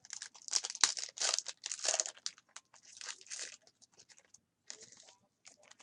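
Foil trading-card pack wrappers being torn open and crinkled by hand, in irregular rustling tears that are loudest in the first couple of seconds and thin out toward the end.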